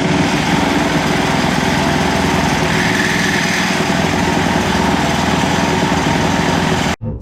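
A small engine or motor running steadily and loudly, cut off abruptly near the end.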